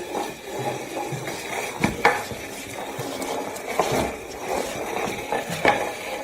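Irregular clinks and knocks of hard objects, like dishes or utensils being handled, over a steady background hiss.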